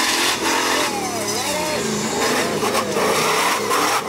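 Off-road competition car's engine revving up and down as it drives a dirt course.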